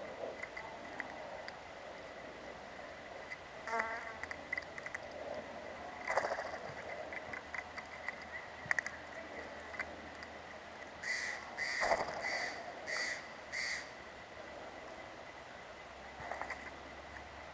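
Steller's jay giving a run of five harsh, evenly spaced calls a little past the middle, over a faint steady high-pitched hum. Light scattered taps come as the jays peck at peanuts on a wooden log.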